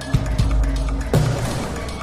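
Music with a heavy bass beat, a strong hit about once a second.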